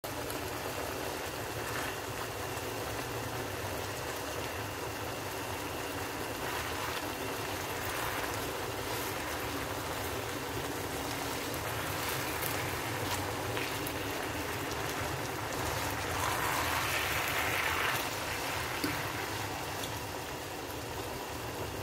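Chicken pieces sizzling as they fry in a pan, a steady hiss that grows louder for a couple of seconds about three-quarters of the way through.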